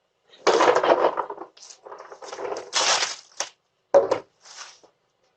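Wrapped candy crinkling and rattling as it is grabbed from a candy bowl in loud rustling bursts, with a sharp knock just before the four-second mark.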